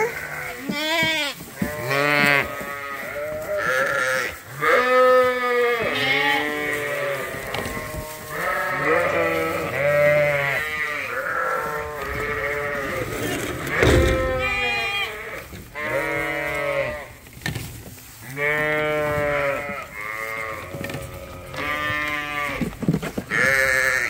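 Bottle-fed lambs bleating over and over at feeding time, many quavering calls overlapping one another, with a single knock about halfway through.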